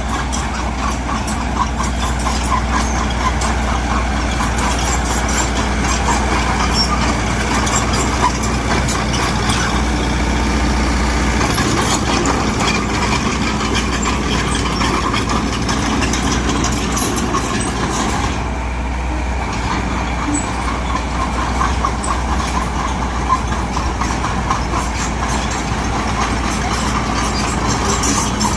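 Mitsubishi BD2G bulldozer's diesel engine running steadily under load, with a continuous rattle of clicks over the engine hum.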